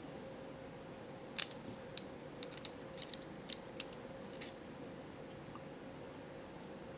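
A string of small, sharp metal clicks and taps, about ten in three seconds with the loudest about a second and a half in, as a 7 mm open-end wrench is fitted to and worked on the 3D printer's print head.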